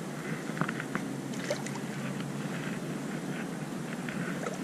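Small waves lapping at the shoreline, a steady wash of water with a few faint ticks.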